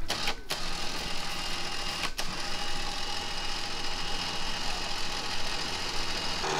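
Winch running steadily, reeling in a homemade drag rake and its load of cattails through the water, with a buzzing motor whine. It cuts out briefly twice in the first couple of seconds, then runs on evenly.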